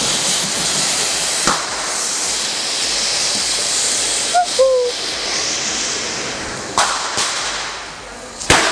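Ground fountain fireworks (flower pots) hissing steadily as they spray sparks, the hiss thinning out toward the end as they burn down. A few sharp firecracker cracks cut across it, the loudest near the end.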